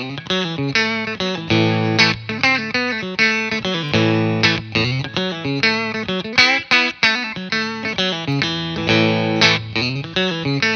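Fender Stratocaster with Custom Shop '50s Fat Strat single-coil pickups, played on its bridge pickup with a clean sound through a Bogner Shiva tube amp with EL34s. It plays a run of picked chords and single notes, each note with a sharp attack that rings on.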